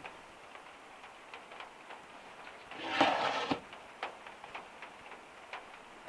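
A short scraping, crunching rustle about three seconds in as a metal bombilla is pushed into damp yerba mate in a gourd. Faint scattered ticks sound throughout.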